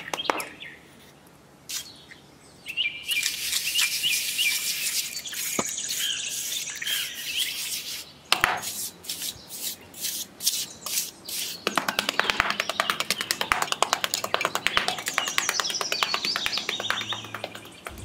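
A small metal hand trowel scraping and patting fine sand in quick strokes, thickest in the second half, with birds chirping in the background.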